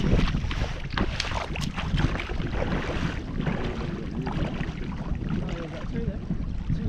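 Wind buffeting the microphone with a steady low rumble, and feet splashing through shallow water during the first couple of seconds as people wade in from the shore.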